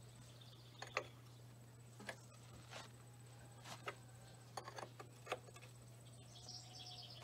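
Faint, irregular clicks and knocks of a wrench being worked on a stuck, rounded oil drain plug in a Farmall C's oil pan. The plug has not yet broken loose. A low steady hum runs underneath.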